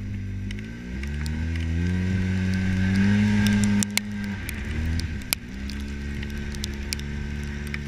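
Side-by-side UTV engine accelerating while driving on snow, its pitch rising for about three seconds before the throttle eases off and it settles into a steady lower run. There are a couple of sharp knocks as it eases off, and a light hiss throughout.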